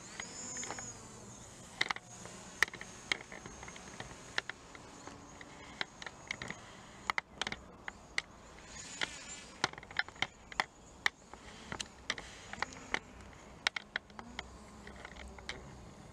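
Small quadcopter drone flying overhead: its propellers make a steady high-pitched buzzing whine that briefly shifts in pitch as it manoeuvres. Sharp clicks are scattered throughout.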